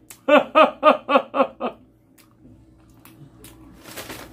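A man laughing in a quick run of about six 'ha's, then a short rustle of a paper takeout bag near the end.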